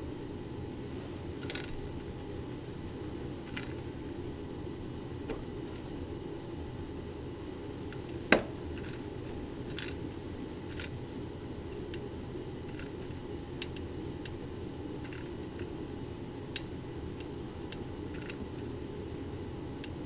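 Small metal clicks and ticks of a driver bit working screws into the aluminium rear housing of a Delco alternator, about a dozen scattered through, the sharpest one about eight seconds in, over a steady low background hum.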